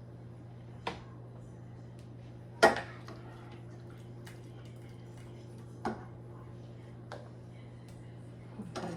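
Dishes and serving utensils clinking four times while food is served onto plates, the loudest clink about two and a half seconds in, over a steady low hum.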